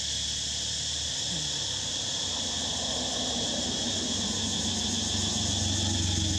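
Steady, high-pitched insect drone, with a low hum underneath that grows a little stronger near the end.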